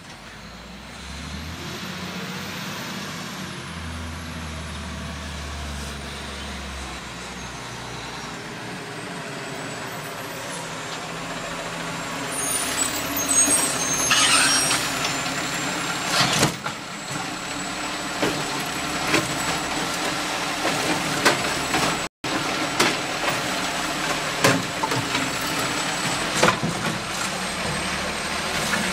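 Diesel engine of an automated side-loader garbage truck pulling up and idling, with a hiss and squeal of its air brakes as it stops about halfway through. Sharp knocks follow in the second half as its hydraulic arm reaches out for the cart.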